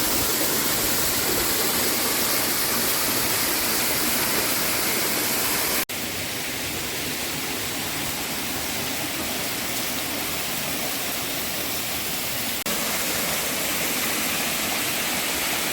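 Waterfall: falling water rushing in a steady, dense hiss, dipping briefly twice, about six and about twelve and a half seconds in.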